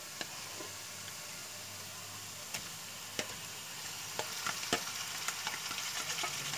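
Minced meat sizzling as it fries in hot oil with golden fried onions, while a spatula stirs it in with sharp clicks and scrapes against the pan. The clicks come more often in the second half.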